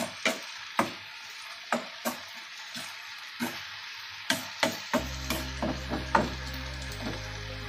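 Sliced ivy gourd sizzling as it stir-fries in a pan, a spatula stirring it with sharp scraping knocks against the pan about once a second. Background music with steady low notes comes in about five seconds in.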